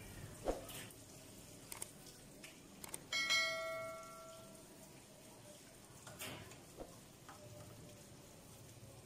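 A few light clicks and knocks, and about three seconds in a metal object is struck and rings for about a second and a half, fading away.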